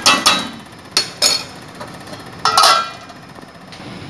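Metal utensils knocking against a steel cooking pot: a few sharp taps in the first second and a half, then a louder clank about two and a half seconds in that rings briefly, as a lid is set on the pot.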